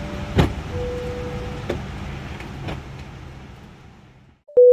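Steady cabin noise inside a Boeing 787-10 airliner, with a few clicks, the loudest about half a second in. The noise fades away and a loud steady beep starts abruptly near the end.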